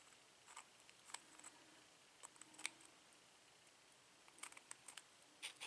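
Faint, scattered small clicks and taps of metal lock parts being handled while the plug is worked out of a pin-tumbler cylinder lock, a few more of them near the end.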